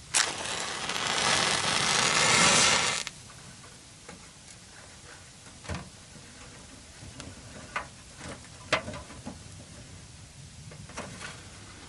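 A wood stove being lit and fed: a loud hiss swells for about three seconds and cuts off suddenly. Then come scattered light knocks and clicks of sticks being handled.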